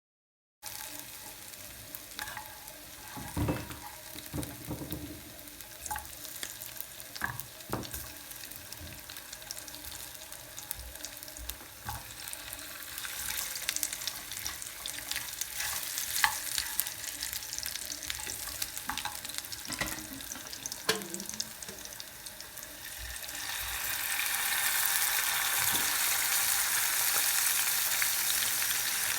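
Food frying in a pan: a steady sizzle with scattered short knocks. About 23 seconds in, the sizzle grows louder and stays loud.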